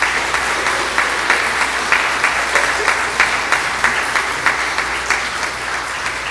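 Congregation applauding, a dense round of many people clapping that eases off slightly toward the end.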